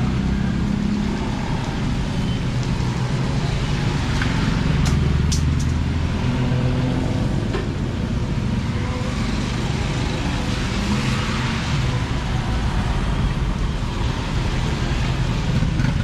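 Steady low rumble of motor-vehicle engines and road traffic, with a few faint clicks about five seconds in.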